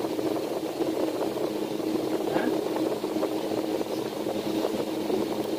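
Evaporative room air cooler running: a steady fan whir with a low, even hum.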